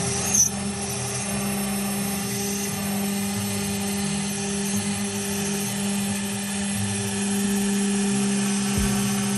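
CNC router spindle running steadily while a tapered V-bit cuts a pocket into an end-grain wood board, giving a constant motor hum with cutting noise. There is a brief sharp sound about half a second in.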